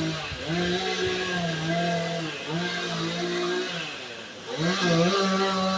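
Two-stroke chainsaw running at high revs while cutting, its pitch sagging and recovering several times. It drops off about four seconds in, then revs back up.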